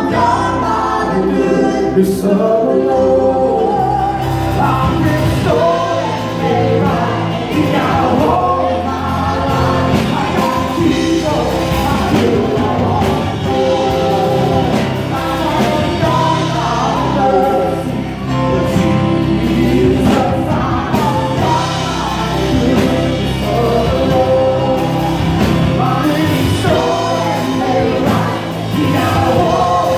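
A small worship group of women singing a gospel song together into microphones over a church PA, backed by keyboard and acoustic guitar.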